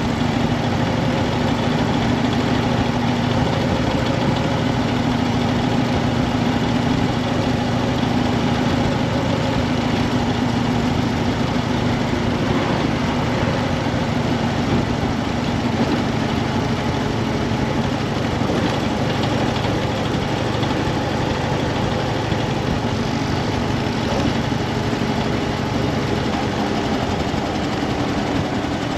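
Harley-Davidson FXDF Dyna Fat Bob's V-twin engine running steadily.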